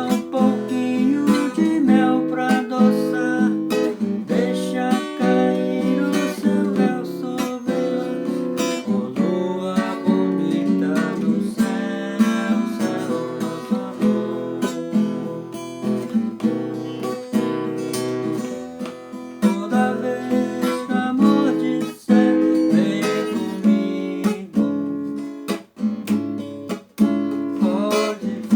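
Acoustic guitar playing a song instrumentally, plucked notes and strummed chords running on continuously.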